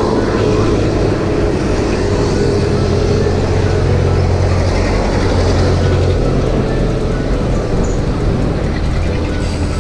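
Steady wind rush and road noise on a handlebar action camera's microphone as a road bike rides along a road, with motor traffic passing.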